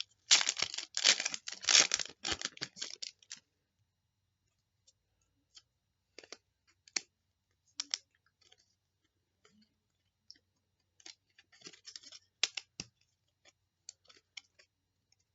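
Trading card pack being opened and handled. A dense burst of wrapper crinkling and tearing lasts about three seconds, then scattered light clicks and snaps as the stuck-together cards are pulled apart and flicked through.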